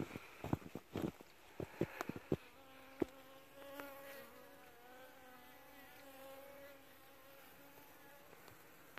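Honeybees buzzing at the hive entrance, a steady hum that sets in about three seconds in. Before it comes a quick run of sharp clicks and knocks.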